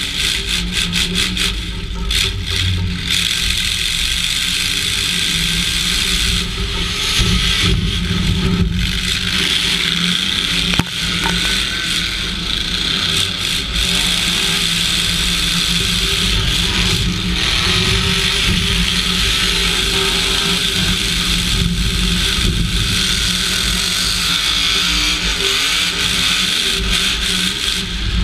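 Half-ton pickup derby truck's engine running through open exhaust pipes that stick up through the hood, heard from inside the stripped cab. Its pitch rises and falls as it revs, with a sharp bang about eleven seconds in.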